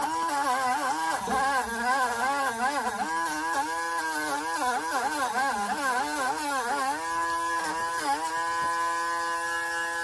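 A handheld rotary tool whines at high speed while scouring old exhaust paste off a car's exhaust pipe. Its pitch wavers and sags each time it is pressed into the metal, then runs steady near the end with two brief dips.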